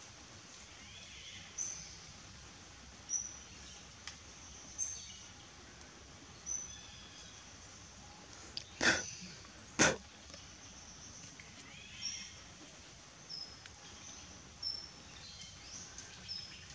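Outdoor ambience: a bird gives a short high chirp every second or two over a steady background hiss. Two loud short noises come about a second apart midway through.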